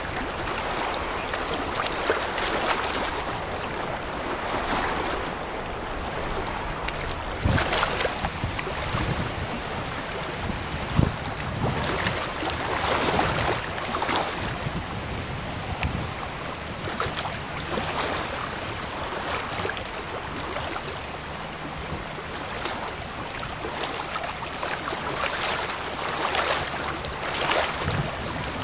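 Water washing and splashing from a large container ship's bow wave, in uneven surges, with gusty wind on the microphone. A faint low hum comes in about two-thirds of the way through.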